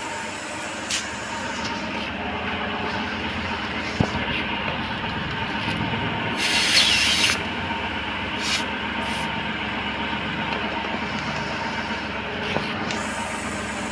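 A short hiss of air escaping from a motorcycle tyre valve as the tyre inflator's hose chuck is screwed onto it, about halfway through, with a sharp click a little before it. Under it runs a steady mechanical hum.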